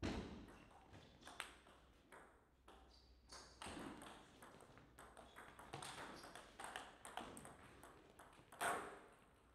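Table tennis ball clicking off the rackets and bouncing on the table during a rally, a quick series of sharp clicks. The loudest hits come at the very start and just before the end.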